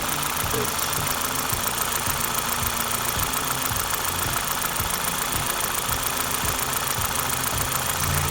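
Toyota Celica GT-S's 2ZZ-GE 1.8-litre four-cylinder engine idling steadily, heard from the open engine bay; the owner says the engine has rod knock.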